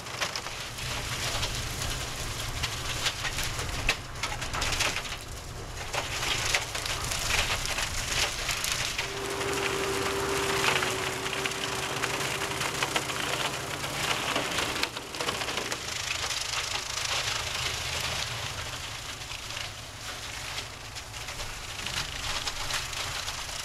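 Tractor-mounted brush mulcher shredding shrubs and branches: continuous crackling and splintering of wood over the steady hum of the tractor's engine. A steady whine rises above it for several seconds midway.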